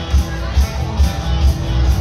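Live country band playing: acoustic and electric guitars over drums, with a steady beat of about two strong thumps a second.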